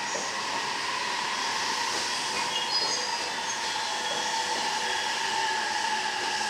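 Train running past a railway level crossing: a steady rolling rush of noise with a sustained whine running through it.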